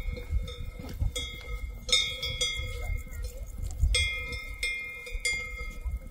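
Swiss cowbells on grazing cows clanking irregularly, roughly once a second, each stroke leaving a ringing metallic tone, over a low rumble.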